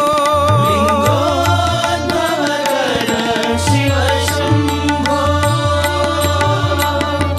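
Devotional Hindu bhajan music to Shiva: a sustained melody that wavers and glides in pitch over a steady tabla beat.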